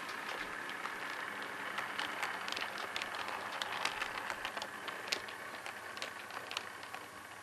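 OO gauge model train running on the layout's track: a steady whir with many irregular small clicks of the wheels over rail joints and pointwork.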